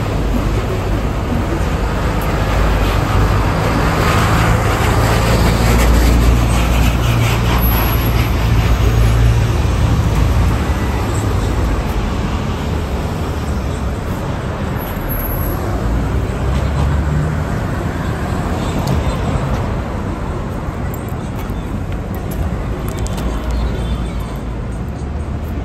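Street traffic noise. A motor vehicle passes with a low engine rumble that swells over the first few seconds and fades away by about halfway through.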